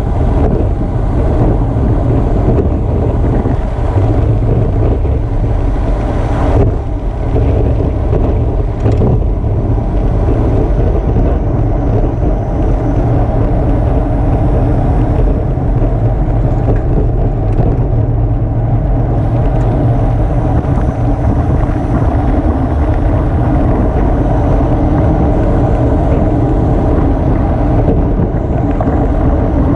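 Steady wind rush on the microphone of a camera mounted on a road bike riding at about 24 to 29 mph, mixed with tyre and road noise.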